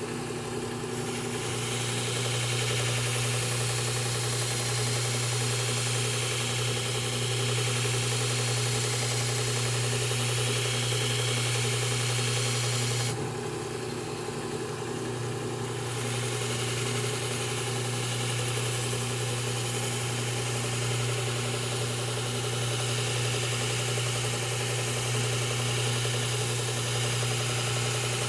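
Belt sharpener motor running steadily, with the hiss of a garden tool's edge being ground on the belt. The grinding hiss lets up for about three seconds midway while the motor keeps running.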